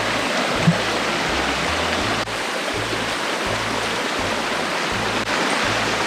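Mountain stream rushing steadily over rocks, with background music underneath and short breaks where the sound is cut twice.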